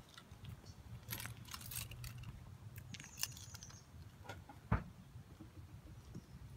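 Keys jangling faintly in a hand, in scattered light clinks, then one sharp click just before the end as the Nissan 350Z's driver's door is unlatched and opened.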